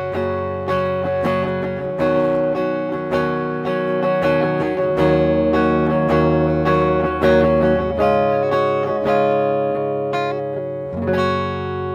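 Schecter Hellraiser Extreme C-1 electric guitar played clean through its EMG 89 neck pickup in humbucking mode: a run of picked notes and chords that ring into each other, with a final chord about eleven seconds in left to ring.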